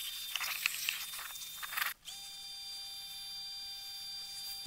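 Water spraying from a hose wand onto a golf cart's body, a steady hiss. About two seconds in the sound breaks off briefly and returns as an even hiss with a faint steady whine.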